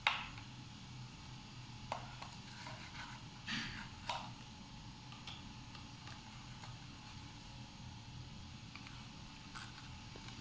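Paper cups and skewers being handled while an anemometer is fitted together: a few light taps and scrapes in the first four seconds or so, over a faint steady hum.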